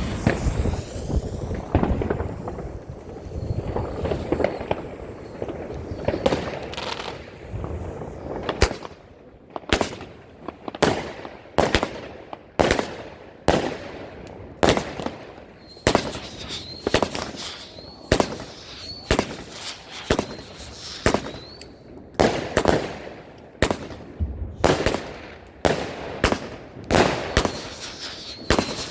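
Panda 'Wind' 25-shot, 20 mm fireworks battery firing its shots one after another, about one launch a second, with the bangs and crackle of the bursts in between. A faint wavering high tone runs under the shots in the middle stretch and again near the end.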